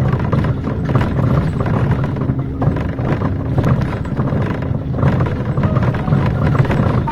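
City bus running, its engine and road noise heard as a steady low rumble from inside the passenger cabin.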